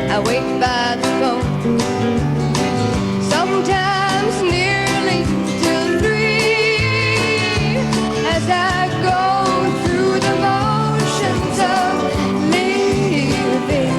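Country band music with guitar prominent: a dense, steady passage of plucked strings over bass and a beat, with some held, wavering notes.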